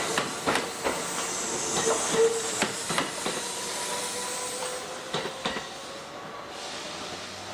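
Yoro Railway electric train pulling out of the station: wheels click irregularly over rail joints and points over a steady rolling noise and a faint motor tone. The sound slowly fades as the train draws away.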